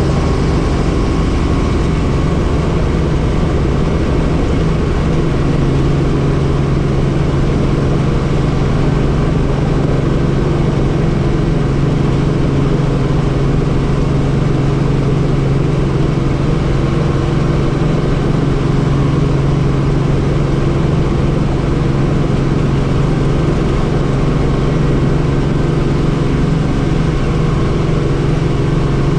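Helicopter engine and rotor drone heard from on board, steady and loud, with a low hum that grows stronger about five seconds in.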